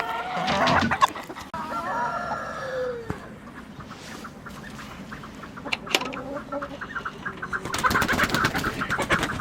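Chickens clucking and calling, with a run of fast, close-spaced cackling notes near the end.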